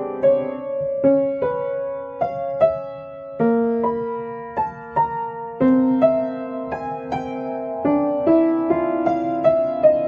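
Background piano music: a slow melody of single notes, about two a second, over held lower notes.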